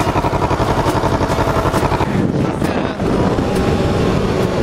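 Sport motorcycle engine running close to the microphone with a rapid pulsing beat. About two to three seconds in it gives way to a steadier engine note with wind noise as the bike rides along.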